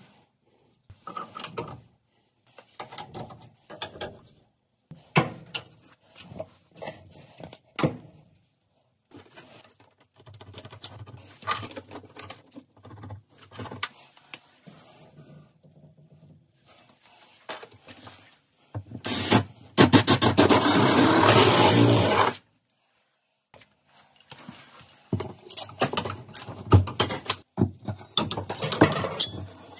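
Copper pipes and fittings being handled and fitted by hand: irregular metallic clinks, knocks and scrapes, with a louder, dense mechanical noise lasting about three seconds just past the middle.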